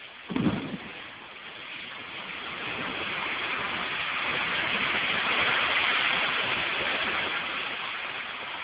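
Demolition of a concrete silo by a long-reach excavator: a deep thump about half a second in, then a long rushing noise of crumbling, falling rubble that swells to its loudest midway and eases off.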